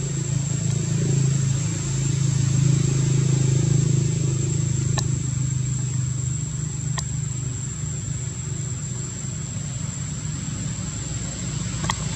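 A motor vehicle's engine running, its low rumble swelling over the first few seconds and then easing off, over a steady high-pitched whine. A few faint clicks.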